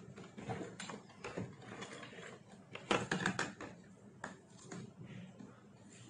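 Irregular small clicks and scrapes of an eyebrow pencil and a hand mirror being handled, with a louder cluster of clicks about three seconds in.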